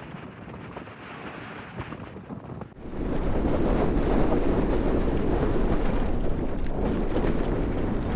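Strong wind buffeting the microphone, a rough rushing rumble that jumps suddenly much louder a little under three seconds in.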